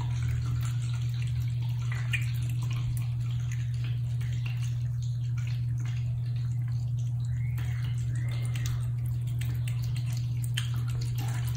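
Two cats eating soft wet pâté from plastic plates: many small wet smacks, licks and chewing clicks, over a steady low hum.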